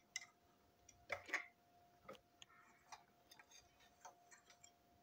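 Faint clicks and taps of small plastic model railway parts being handled and pulled apart, a brake van's body coming off its chassis; a quick cluster of clicks a little over a second in is the loudest. A faint steady hum runs underneath.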